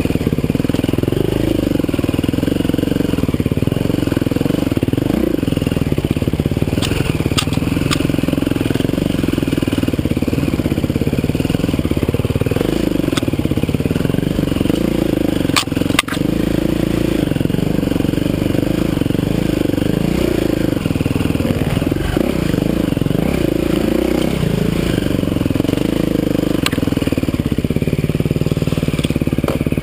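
Dirt bike engine running as it is ridden along a trail, its pitch rising and falling with the throttle. A few sharp knocks come about seven to eight seconds in and again around sixteen seconds.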